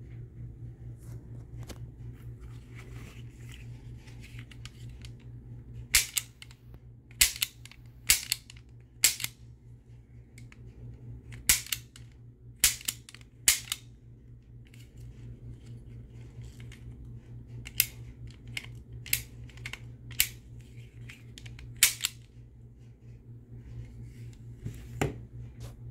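Mattel Shootin' Shell Fanner 50 toy cap revolver being cocked and fired over and over, its hammer giving about a dozen sharp snaps in small irregular groups, with light handling noise in between.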